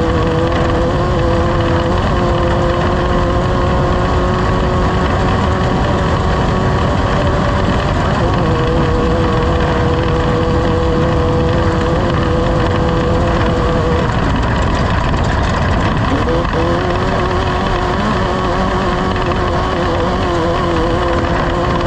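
Off-road race vehicle's engine running hard and steadily under a heavy rumble, its note dropping about 14 seconds in and settling back about two seconds later.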